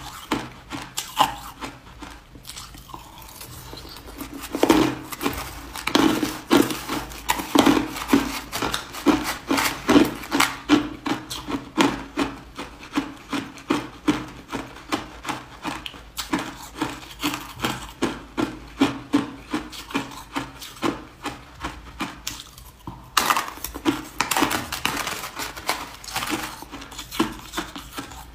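Ice being crunched between the teeth: hard ice cubes and crushed ice chewed in a rapid, steady run of sharp crunches. The crunching is quieter for the first few seconds and breaks off briefly about 23 seconds in.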